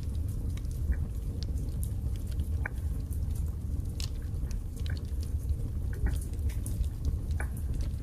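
Wood fire burning in a fireplace: a steady low rumble of flames with irregular sharp crackles and small pops from the burning logs.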